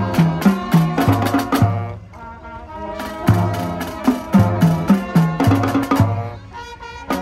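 Marching band playing in the street: saxophones and brass over snare and bass drums in a steady rhythm. The music eases off briefly about two seconds in and again near the end.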